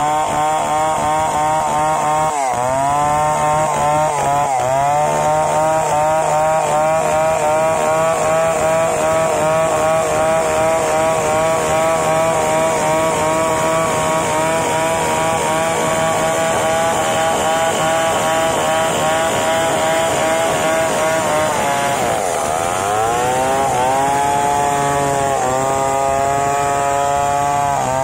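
Large two-stroke chainsaw, a Stihl 070-type, ripping lengthwise through a wadang hardwood log at high revs. The engine note sags sharply and recovers twice, about two and a half and four and a half seconds in. It sags again for longer past the twenty-second mark and climbs back as the cut goes on.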